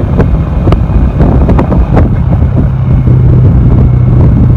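Motorcycle engine running at road speed with heavy wind noise on the microphone; a steady engine drone comes through more clearly in the second half.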